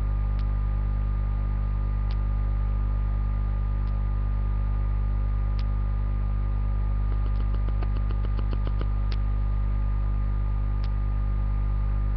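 Steady electrical mains hum, with faint ticks every second or two and a quick run of ticks about seven to nine seconds in.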